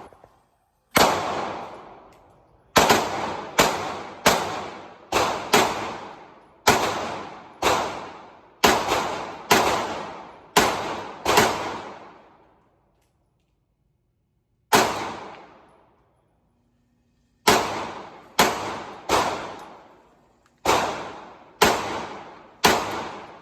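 Gunshots from a firearm fired one at a time, about nineteen in all. The first dozen come steadily at roughly one a second, then after a pause of a couple of seconds they resume in spaced pairs and single shots. Each crack rings on for a second or more.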